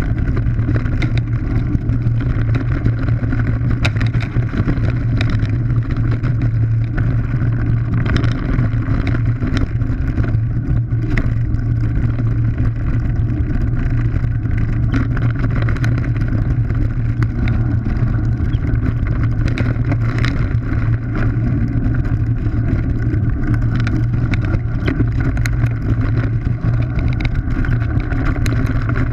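Mountain bike riding fast down a rough dirt desert trail: a steady loud rush and low rumble of wind and riding noise on the microphone, with frequent small knocks and rattles as the bike goes over stones and ruts.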